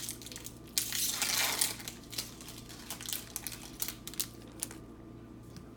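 A trading-card pack wrapper being torn open, a crinkly rip about a second in, followed by scattered light clicks and rustles as the cards are handled.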